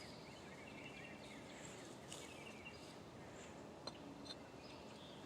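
Quiet outdoor background with faint high bird chirps, and a single light click about four seconds in.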